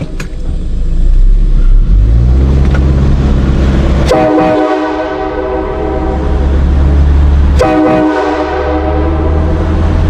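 Nathan K5LA five-chime train horn, a 1990s parts build, blown twice: a held blast of about three and a half seconds starting about 4 s in, then after a brief break a shorter one fading out, over a steady low drone.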